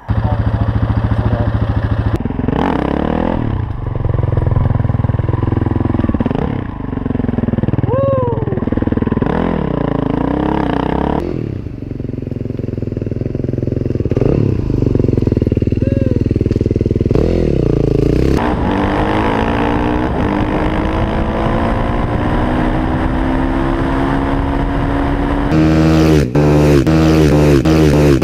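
Yamaha WR450F supermoto's single-cylinder four-stroke engine revving up and down repeatedly as the rider works the throttle through wheelies. Later it holds one long, steady climb in revs. Near the end it is loudest as the bike passes close by.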